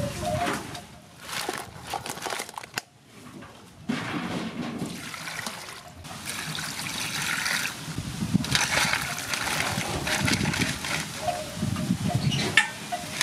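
Water pouring and sloshing into a metal basin full of crabs to wash them. It builds steadily from a few seconds in, after some scattered clatters of crabs being handled in the bowl.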